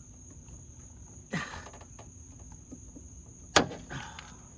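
Hand rivet gun squeezed to set a pop rivet, with a single sharp, loud snap about three and a half seconds in as the rivet's mandrel breaks off. Crickets chirp steadily in the background.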